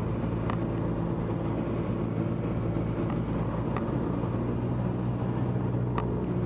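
Cessna 172's engine and propeller droning steadily as heard inside the cabin on final approach, with three faint brief ticks spread through it.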